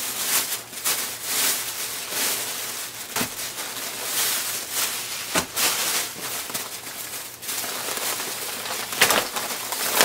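Thin plastic grocery bags rustling and crinkling as they are handled and unpacked, with a few sharp clicks along the way.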